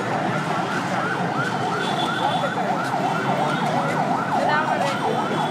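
An electronic siren yelping in quick up-and-down sweeps, two to three a second, over the steady noise of busy street traffic.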